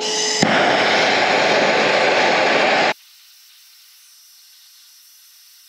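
Hand-held MAP gas torch lit with a click about half a second in, then burning with a loud steady hiss as it heats the chassis steel. About three seconds in the hiss drops abruptly to a much fainter one.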